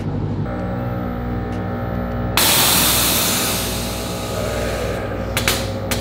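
Car engine idling steadily. About two and a half seconds in, a sudden loud hiss starts and fades away over about two seconds.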